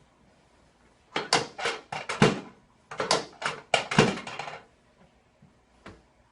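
Chiropractic pelvic adjustment: two quick runs of sharp knocks, about six or seven in each, then one softer knock near the end.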